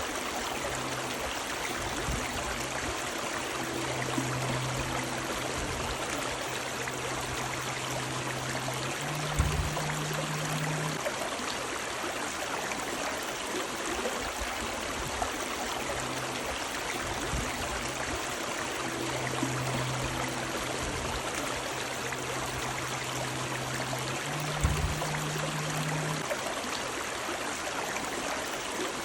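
A river of running water rushes and gurgles steadily. Under it, a faint low hum comes and goes, and a dull low thump sounds twice, about fifteen seconds apart.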